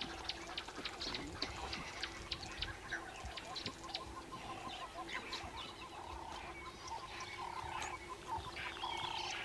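Several birds calling: a run of quick high chirps and repeated short lower calls, over a steady low drone.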